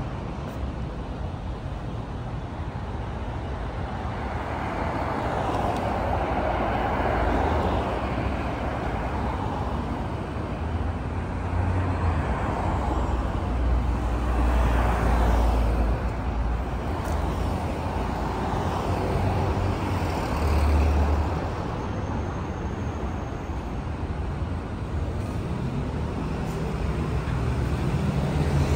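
Road traffic on a city street: cars and other vehicles passing one after another over a low engine rumble, the noise swelling and fading several times as each goes by.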